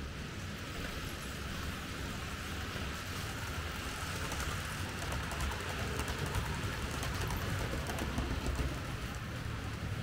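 H0-scale Märklin model train rolling along the track: a steady rumble of wheels and motor with many fine clicks. It grows louder toward the middle as it comes close and eases off near the end.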